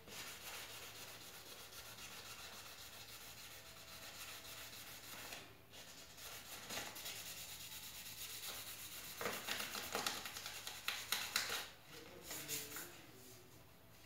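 Hand sanding of plastic car trim: a steady scrubbing rasp that breaks off briefly about five seconds in, then resumes with quicker, distinct back-and-forth strokes that stop about twelve seconds in.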